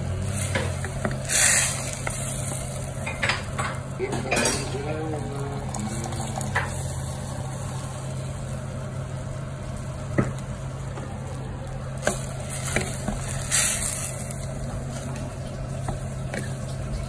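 A wooden spoon stirring a thick duck and potato stew in a stainless steel pot, with scraping and a few sharp knocks against the pot, over a steady low hum.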